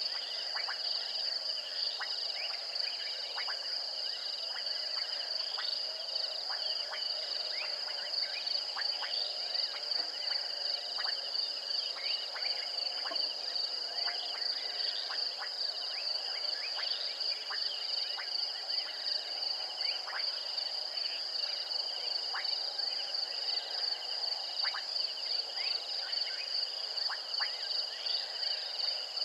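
Nocturnal chorus of insects and frogs: a steady high-pitched insect trill, with many short frog-like chirps and clicks scattered throughout.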